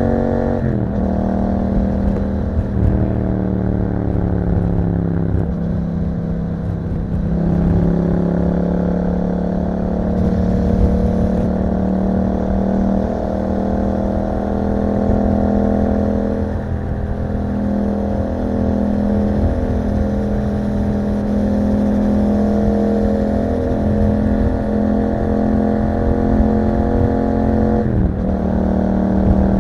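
2021 Yamaha MT-07's 689 cc parallel-twin engine running through an Akrapovic exhaust while the bike is ridden. Its pitch drops sharply at a gear change about a second in and again near the end, sags slowly for a few seconds, and otherwise holds a steady cruising note.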